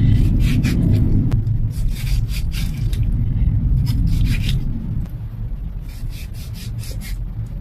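Knife chopping a tomato on a cutting board: a quick run of cutting strokes, several a second, thinning out near the end, over a low steady rumble.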